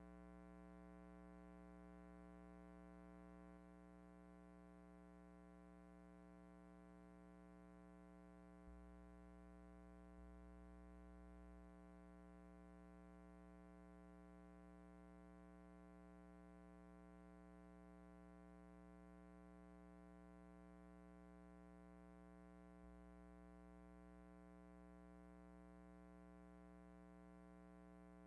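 Near silence: a faint, steady electrical hum with nothing else to be heard.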